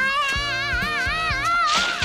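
Cartoon sound effect: a wavering tone that glides up at the start and then wobbles about four times a second, under a trembling cartoon bear. Near the end it is cut off by a loud burst of rushing noise as water and flame erupt.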